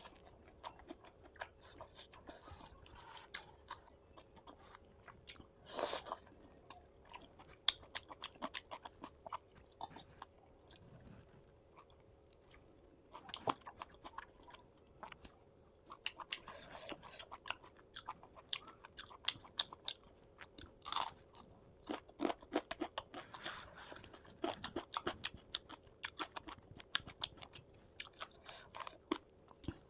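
Close-miked eating of a fish-fry, fish-curry and rice meal: continual wet chewing, biting and crunching, with a few louder crunches, the strongest about six seconds in.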